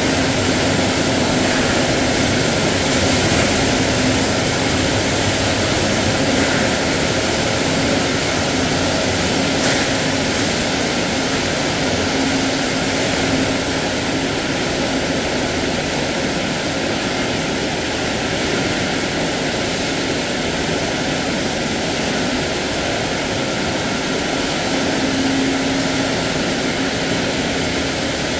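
Steady, loud drone of food-processing plant machinery and air handling, with a constant low hum.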